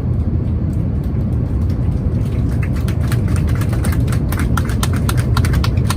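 Steady low cabin roar of an Airbus A350-900 in flight on descent. From about two seconds in it is joined by a rapid run of sharp clicks and ticks.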